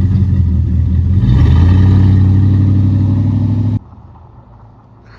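1998 Dodge Ram 1500's 5.2 Magnum V8 running loud through its full exhaust at about 55 mph, with rushing road and wind noise growing about a second in. The sound cuts off abruptly a little over a second before the end, leaving a low background with a few faint ticks.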